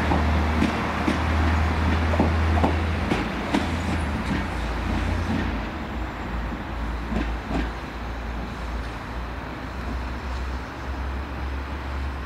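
Network Rail Windhoff Multi-Purpose Vehicle moving off, its diesel engine running with a steady low drone while its wheels knock over rail joints and points. The knocks come thick for the first five seconds, then thin out, and the train grows slightly quieter as it pulls away.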